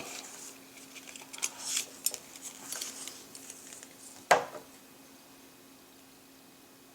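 Palladium-plated brass belt buckle being handled and turned over: light clinks and rustles, then one sharp metallic click about four seconds in.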